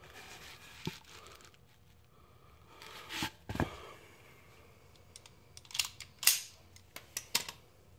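Quiet handling noises: scattered soft rustling and knocks, with a cluster of sharp clicks in the second half.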